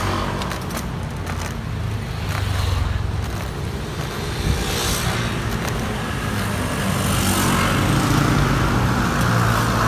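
Street traffic: motor scooter and car engines running past, with one passing close about halfway through.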